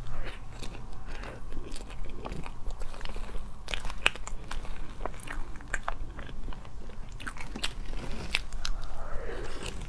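Close-up eating sounds: wet mouth clicks and chewing of soft matcha cream cake, with short sharp clicks scattered throughout as a metal spoon works in a plastic tub.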